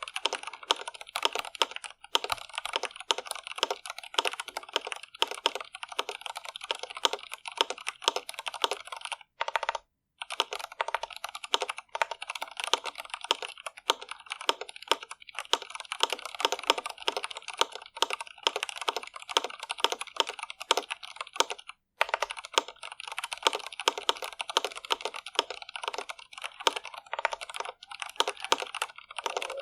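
Fast, continuous typing on an Iqunix L80 mechanical keyboard with stock Cherry MX Red linear switches, a dense patter of keystrokes. Typing pauses briefly about a third of the way in and again about three quarters of the way through.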